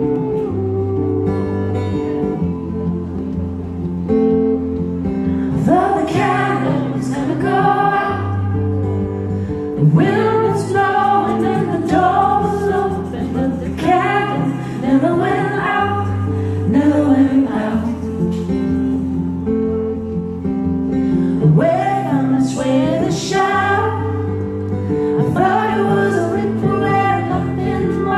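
Live song: a woman singing over her strummed acoustic guitar, with low bass notes held steadily underneath. The opening five seconds or so are instrumental before the voice comes in.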